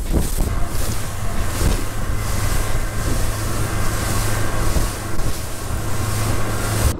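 Wind buffeting the microphone and waves washing against a fishing boat, over a steady low hum from the boat's motor. The sound cuts off abruptly at the end.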